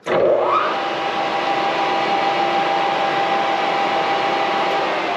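Metal lathe starting up, its whine rising over about the first second, then running steadily while it turns a stainless steel rifle barrel's tenon.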